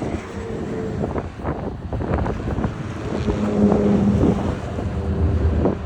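A train passing close by, rumbling with clattering knocks from the wheels and wind on the microphone. Its horn sounds in three short blasts, the longest about a second.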